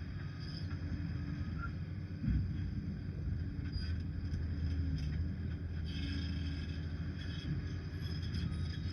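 Liebherr PR 746 bulldozer's diesel engine running steadily, with a thump a little over two seconds in and a few light clicks.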